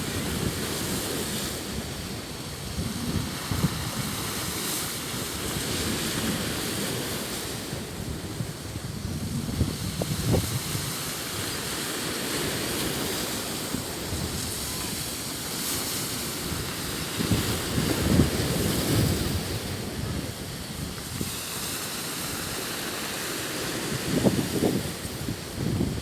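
Sea waves washing on the shore, swelling and easing every few seconds, with wind buffeting the microphone.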